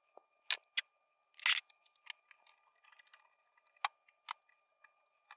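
Scattered sharp clicks and taps of small tools and parts being handled on a stereo receiver's metal chassis during desoldering, with a longer scraping rustle about a second and a half in. A faint steady high tone runs underneath.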